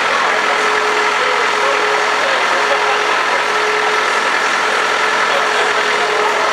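Tractor engine idling steadily, with people talking underneath.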